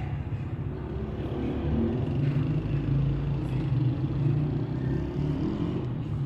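A motor vehicle's engine running close by, a low hum that swells in the middle and eases off near the end, as of a vehicle passing.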